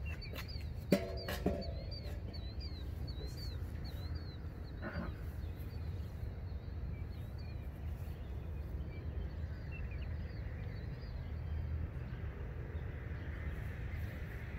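Outdoor ambience: a bird chirping over and over in short high notes, about two a second, fading out about ten seconds in, over a low steady rumble. Two sharp clicks come about a second in, and a rising rush of passing traffic builds near the end.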